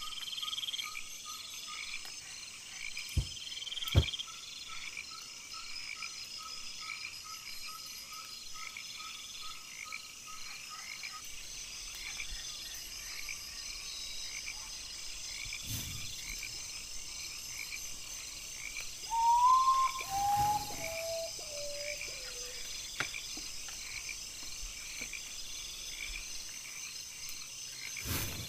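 Night chorus of frogs and insects in the rainforest: many small calls pulsing steadily together. About 19 s in, a louder call of several clear notes steps down in pitch, and two sharp clicks come near 3 and 4 s.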